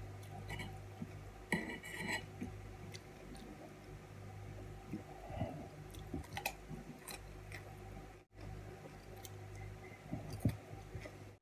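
Close-miked chewing of raw vegetables and olives, with a few short clicks and clinks of a fork against the plate.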